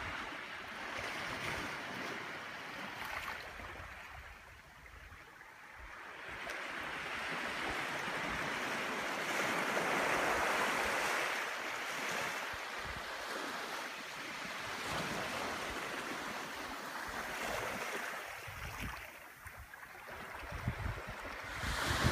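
Small waves washing up on a sandy beach: a steady surf wash that swells and eases, loudest about ten seconds in.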